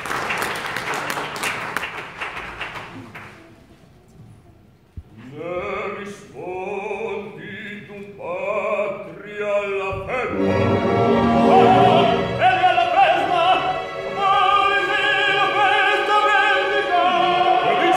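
Audience applause dies away over the first three seconds; then a male operatic voice sings in short phrases with accompaniment, and fuller opera music with singing takes over from about ten seconds in.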